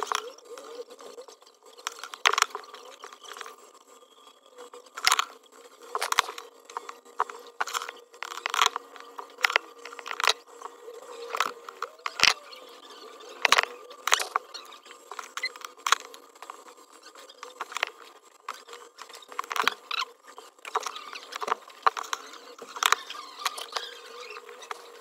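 Close, irregular clicks, taps and light scrapes of metal tweezers and fingertips working on the bare metal rear housing of an iPhone 13 Pro Max, picking at debris around the wireless charging coil during a back glass replacement.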